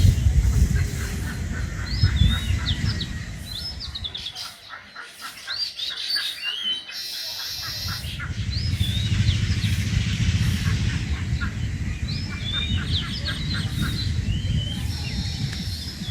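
Small birds chirping repeatedly in short, quick calls, over a low rumbling noise that is the loudest sound and fades for a few seconds in the middle.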